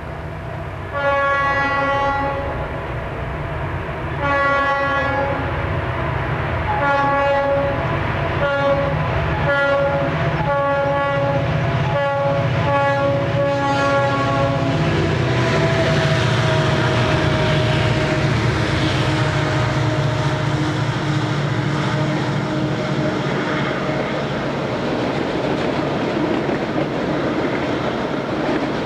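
Multi-tone air horn of a Conrail diesel freight locomotive sounding two long blasts and then a quick string of about eight short ones. It is followed by the steady rumble of the train drawing near.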